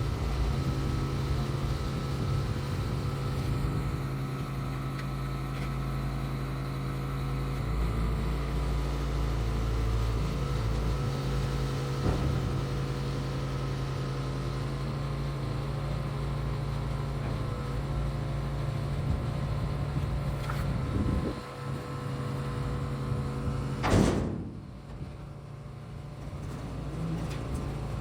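An engine running steadily with a low drone, and one sharp knock near the end.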